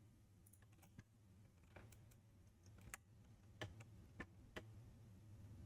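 Near silence with about six faint, scattered clicks of a computer mouse and keyboard over a low steady hum.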